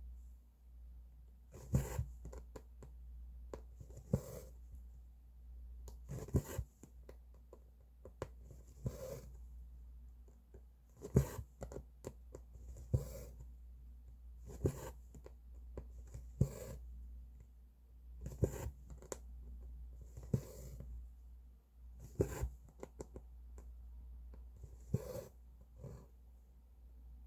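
Cross-stitch needle and thread pulled through fabric: a short scratchy pull roughly every two seconds, over a steady low hum.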